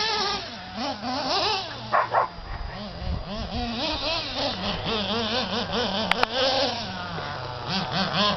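Dog whining and whimpering excitedly, a near-continuous wavering whine that keeps sliding up and down in pitch.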